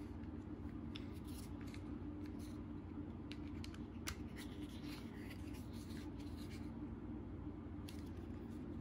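Faint, scattered clicks and scrapes of hard plastic toy parts being handled and fitted together, with a plastic screw being turned by a plastic toy screwdriver, over a steady low hum.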